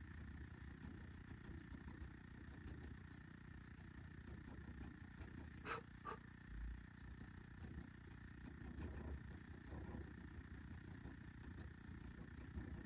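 Quiet, steady low hum of background room noise, with two light taps in quick succession a little after halfway.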